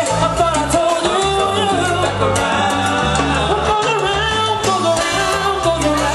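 Live salsa band playing, brass lines over a repeating bass pattern and percussion.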